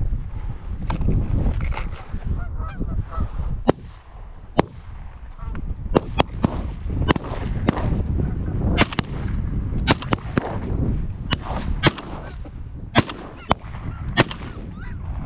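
Goose honks, short and sharp, repeated one to two times a second and more often in the second half, over wind rumbling on the microphone.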